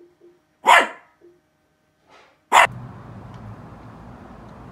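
Small Havanese–Shih Tzu mix dog barking: two sharp single barks, the first under a second in and the second about two and a half seconds in. After the second bark a steady low background noise sets in.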